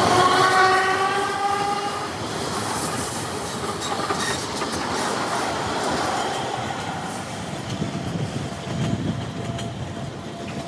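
ER2 electric multiple unit pulling away past the platform. Its traction motors whine, rising in pitch for the first couple of seconds, then the wheels run on the rails, with a clatter that fades as the train moves off.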